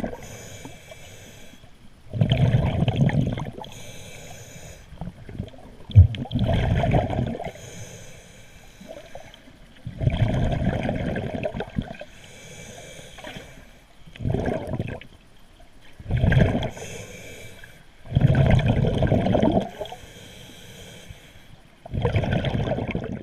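A diver's breathing heard underwater: about seven bursts of exhaled bubbles rumbling, each about a second long and every two to four seconds, with a softer hiss between them.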